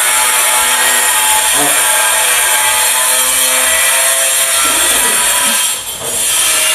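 Electric power tool cutting continuously, a loud steady high-pitched grinding hiss over a motor whine; it eases off briefly near the end.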